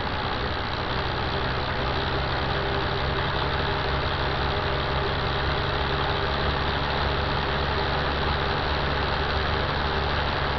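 A motor-driven saw running steadily: a dense, even noise with a low hum underneath.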